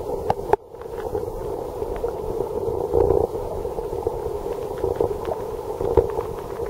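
Mountain stream water flowing steadily, with scattered small clicks; the sound cuts out briefly about half a second in.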